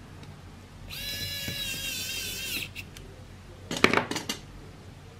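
A small electric screwdriver runs for under two seconds with a high whine and dips in pitch as it stops, driving a screw in the driver board's wire terminal. A few sharp clicks and knocks of handling follow near the end.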